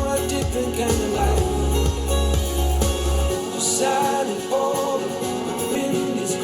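Recorded music played back through a pair of powered bookshelf speakers. About three seconds in, a bass-heavy track gives way to a lighter passage with no deep bass and a melodic line.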